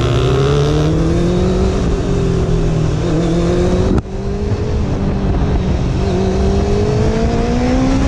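Honda sport motorcycle's engine running under way and gaining speed. After a brief break about halfway, its pitch climbs steadily. Wind rushes over the microphone throughout.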